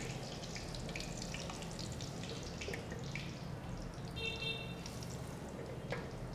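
Marinated chicken lollipops deep-frying in hot oil: a steady sizzle with scattered crackles and pops, the raw pieces freshly in the oil and bubbling hard. A short high-pitched tone sounds about four seconds in.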